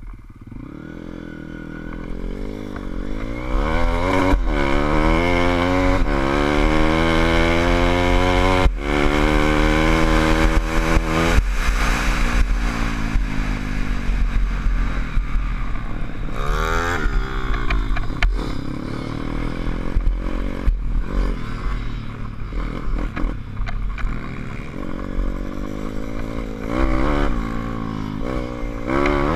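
SSR150 pit bike's single-cylinder four-stroke engine pulling hard through the gears, its pitch climbing and dropping back at each upshift, then running on with smaller throttle changes. Wind rumbles on the helmet-mounted microphone.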